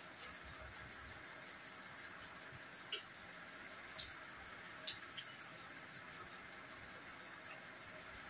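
Quiet eating by hand at a table: a steady faint hiss with four short, sharp clicks against the plates between about three and five seconds in.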